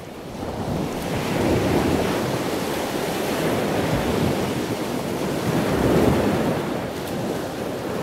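Steady rushing water ambience like ocean surf or underwater sound, with no tones in it. It swells up in the first second and then holds with slow rises and falls.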